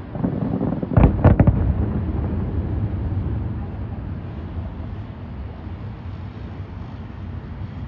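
Aerial firework shells bursting: a quick cluster of several sharp bangs about a second in, followed by a low rumble that slowly fades.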